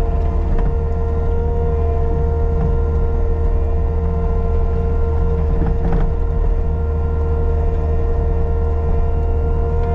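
Caterpillar 299D2 compact track loader's diesel engine running steadily at working throttle, with a steady high whine over the low engine drone.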